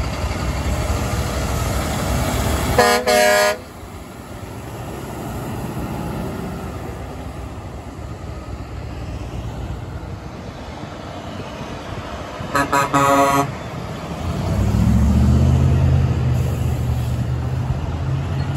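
Caterpillar CT660S dump truck passing and sounding its dual Hadley air horns, low and high together, in two short blasts about three seconds in. About thirteen seconds in another truck's air horn gives a quick run of short toots, then a big diesel tractor unit pulls through with a deep, loud engine drone.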